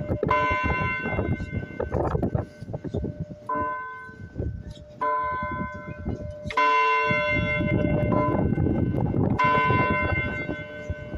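Church bells of a parish church being rung: about five strikes at uneven intervals, each ringing on and fading, with a low rumbling noise underneath.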